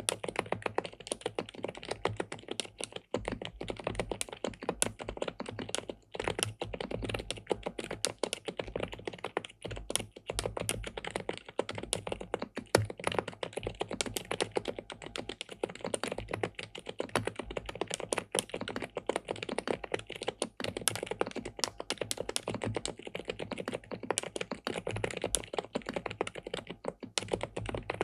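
Fast, continuous typing on an SPM Mongdol87 (PL87W) tenkeyless mechanical keyboard with linear switches and a PC plate. The keystrokes come densely, with only a few brief pauses.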